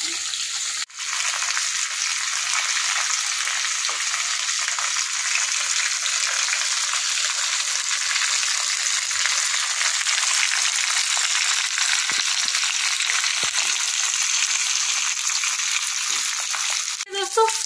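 Large katla fish head shallow-frying in hot mustard oil in a kadhai, the oil sizzling steadily. The sizzle breaks off for a moment about a second in.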